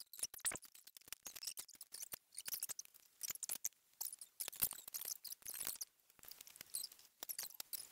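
Hands stuffing cooked pasta shells with chopped broccoli and handling a plastic colander and ceramic bowls on a countertop: quick, irregular small clicks and taps.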